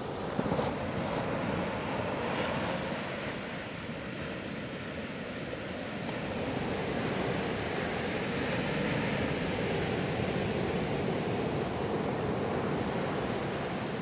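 Small sea waves breaking and washing up onto a sandy beach, a continuous rush of surf and foam that grows a little louder past the middle.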